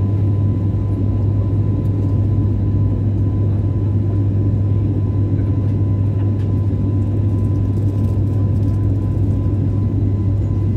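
Steady cabin noise of an airliner in flight just after takeoff: engine and airflow sound heard from inside, a deep even hum with a faint high steady tone above it.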